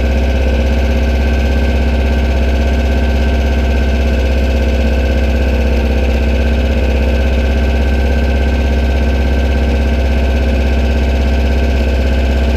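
Volkswagen-based buggy's engine idling steadily with a strong low hum, the buggy standing still.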